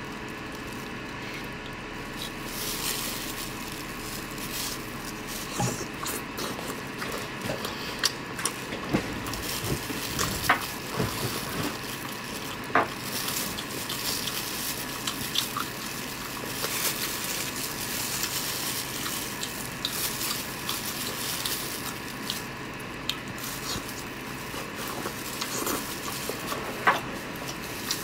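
Plastic-gloved hands handling sauced sea snails on a scallop shell: wet squishing and scattered small clicks of shell over a steady hiss.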